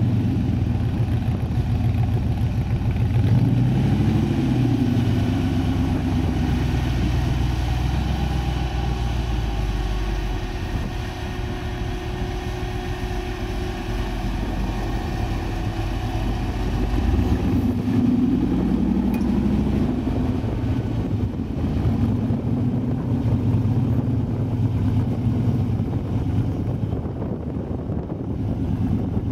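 Engine of a small off-road buggy driving through sand, its revs rising and falling several times.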